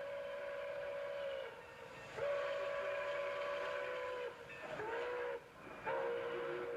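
Steam whistle of Milwaukee Road 261, a 4-8-4 steam locomotive, sounding a steady chord in the grade-crossing pattern: a long blast that ends about a second and a half in, a second long blast, a short one, and a final long blast starting near the end. The train's running noise continues underneath.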